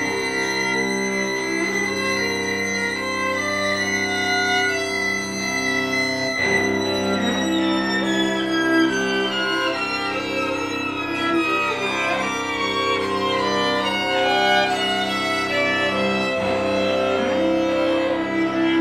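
String quartet of two violins, viola and cello playing sustained notes over held low tones; about six seconds in, a high line starts a slow downward glide in pitch that runs for several seconds.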